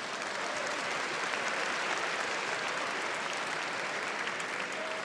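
Large banquet audience applauding steadily, a dense even clatter of many hands.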